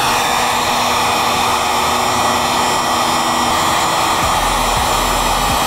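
Electric heat gun blowing a steady rush of hot air onto heat-shrink tubing over spliced wire joints, cutting off abruptly at the end.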